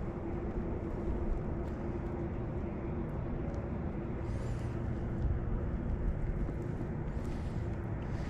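Steady low rumble of road traffic with a faint steady hum running through it.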